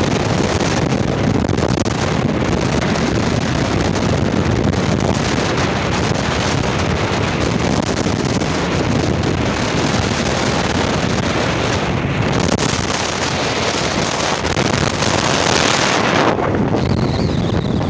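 Loud wind buffeting the microphone while riding along a highway at speed, over a steady rumble of the vehicle and road. The highest hiss drops away about sixteen seconds in.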